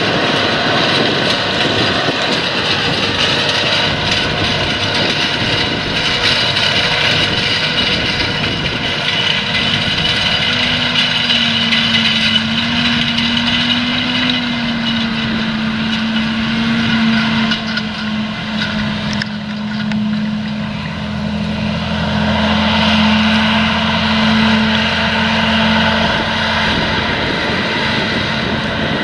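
John Deere 8345R tractor's diesel engine running steadily under load while it pulls a disc-and-tine cultivator through stubble, mixed with a dense, even noise from the implement working the dry soil. A steady engine note comes up about a third of the way in and holds.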